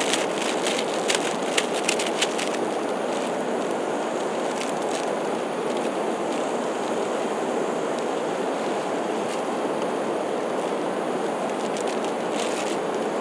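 Steady rushing noise, with the plastic wrapper of an instant-noodle packet crinkling during the first couple of seconds and again briefly near the end.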